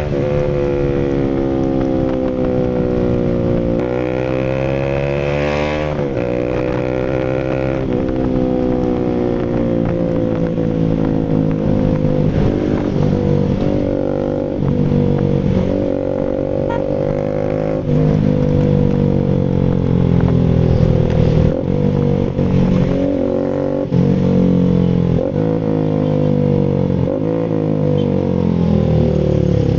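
Rouser RS200's single-cylinder engine running through an SC Project full exhaust. Its pitch rises and falls repeatedly as the throttle is worked, with quicker rises and sharp drops in the second half.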